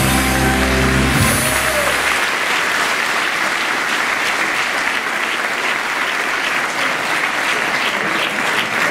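Audience applauding, a steady mass of clapping. A low held tone sounds under the first two seconds.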